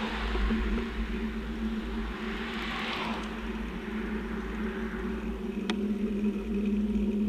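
Road traffic: two vehicles pass, one at the start and one about three seconds in, over a steady low hum and wind rumble on the microphone.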